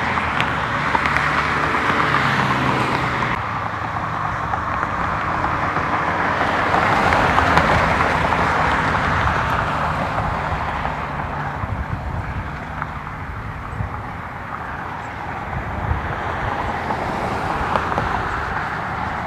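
Vehicle running, with a steady rushing noise that swells and fades; a low engine hum drops away abruptly about three seconds in.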